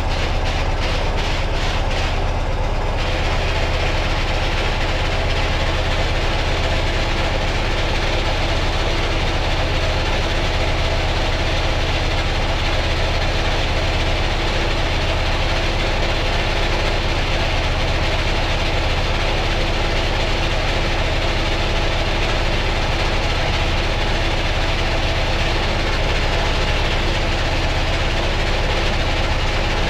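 Ural motorcycle's flat-twin engine running steadily with the gearbox turning, with a short rattle in the first few seconds.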